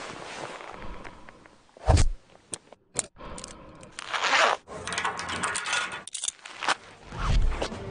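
Metal gear being handled, with sharp clinks and clicks from hardware such as a screwgate carabiner. A short swish comes about four seconds in.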